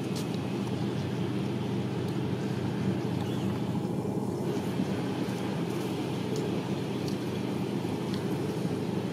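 A steady low mechanical drone, with a few faint crunches of crispy fried chicken being bitten and chewed.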